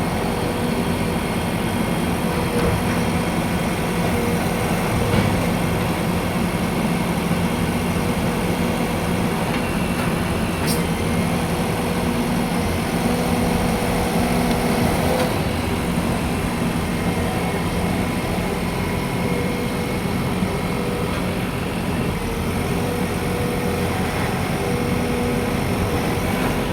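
JCB backhoe loader's diesel engine running steadily, with one brief sharp click about eleven seconds in.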